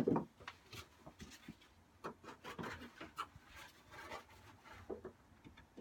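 Faint, scattered clicks, taps and scrapes of metal parts being handled as a lawn mower's front wheels and axle are taken off its deck.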